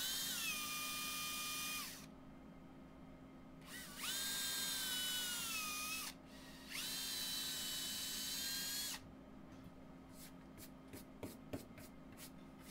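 Cordless drill driving #10 wood screws into a wood plank: three runs of motor whine, the pitch dipping partway through each run as the screw takes load. A few light clicks follow near the end.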